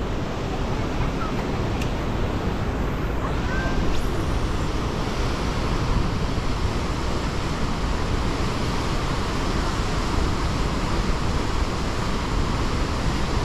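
Steady rush of water pouring through dam spillway gates and churning in the fast current below.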